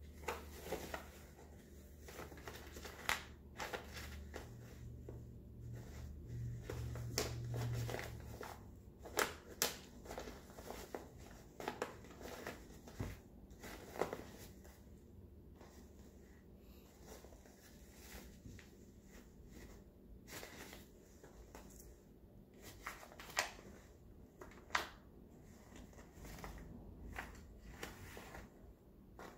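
Rustling and crinkling of a black reusable tote bag as a cat rolls and paws around inside it, in short, irregular crackles and scratches.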